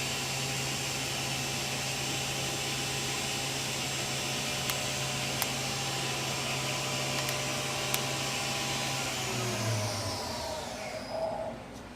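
Milltronics VM-16 CNC mill's 24 HP CAT 40 spindle running steadily at its top speed of 8,000 RPM, a steady whine with a few faint ticks. About nine seconds in, the pitch falls as the spindle spins down, and the sound dies away near the end.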